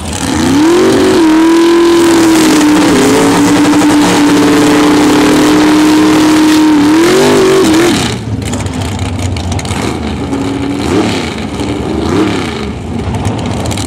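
Drag car doing a burnout: engine held at high revs with the rear tyres spinning for about seven seconds, then let off. Two short rev blips follow near the end.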